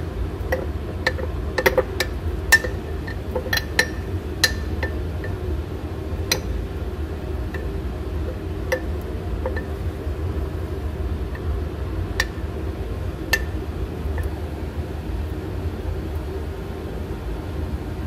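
A metal spoon clinking and scraping against the inside of a glass jar as sourdough starter is stirred and scooped. The sharp clinks are irregular, frequent in the first few seconds and sparser later, over a steady low hum.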